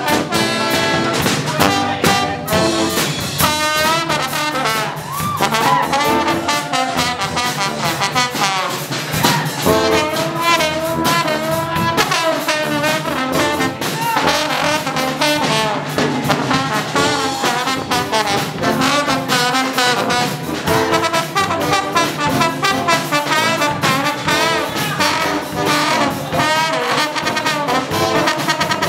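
Live brass band playing an upbeat, jazzy number, with a slide trombone out front over saxophone and more trombones, driven by a steady beat of short percussive hits.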